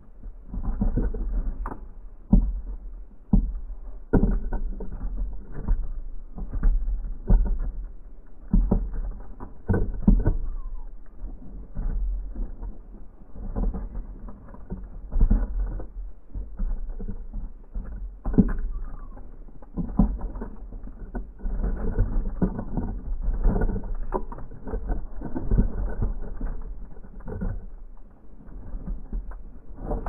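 House sparrows feeding on black sunflower seeds on a wooden platform feeder close to the microphone: an irregular stream of pecking, seed-shuffling and scratching clicks and knocks, muffled, over a steady low rumble.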